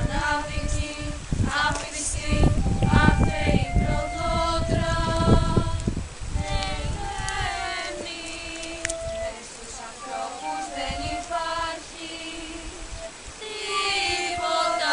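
A group of young girls singing together as a choir, with long held notes.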